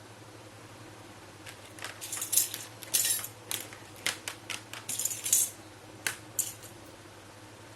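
Small, hard miniature toy kitchen pieces clicking and clinking as they are handled and set down: a quick, irregular run of light clinks that starts a second or two in and stops shortly before the end.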